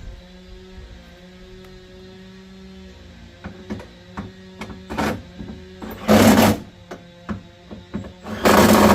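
Impact wrench run in two short bursts, about six and eight and a half seconds in, driving hood hinge bolts home, with light clicks and clanks of tools and parts in between over a steady background hum.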